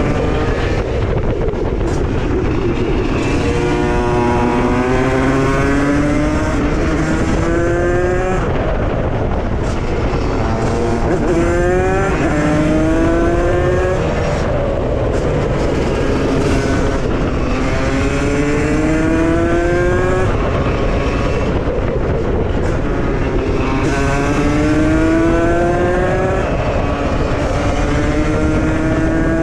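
Tuned Beta RR 50 with a 77 cc Stage 6 two-stroke cylinder on its AM6 engine and a KTM SX85 exhaust, revving hard and accelerating. Its pitch climbs, drops back and climbs again several times.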